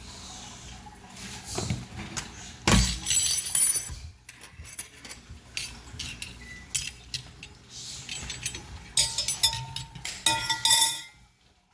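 A metal fork and dishes being handled, giving a string of sharp clinks and knocks. The clinks bunch up twice, about three seconds in and again near the end, some ringing briefly.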